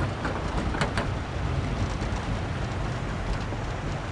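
Steady low rumble and hiss of a fishing boat on the river, with a few brief sharp clicks about a second in.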